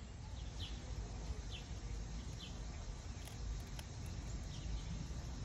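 Quiet outdoor ambience: faint, short, falling chirps about once a second over a steady low rumble.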